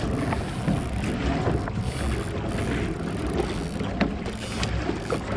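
Steady wind rumble on the microphone over water lapping against a kayak hull, with a few faint, scattered clicks.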